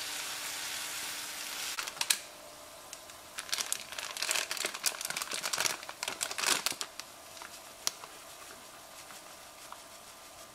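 Vegetables sizzling in a frying pan, which stops abruptly about two seconds in. Then a few seconds of plastic packaging crinkling, a bag of sesame being handled.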